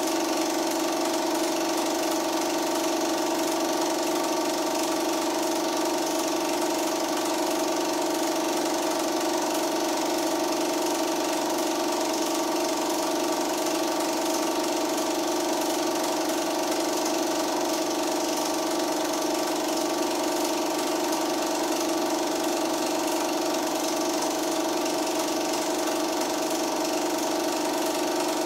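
Film projector running: a steady, even mechanical whir with a constant hum.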